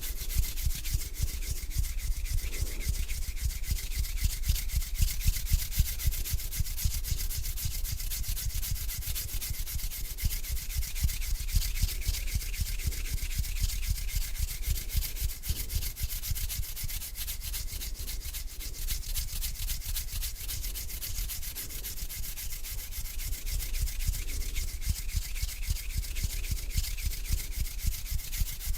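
Bare hands rubbing together in a steady, continuous dry swishing, made of many fine strokes without a break.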